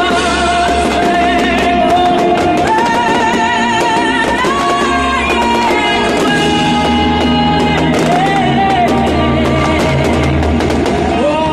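Music with a singer holding long notes with vibrato over a steady low accompaniment, played as the soundtrack to a fireworks display.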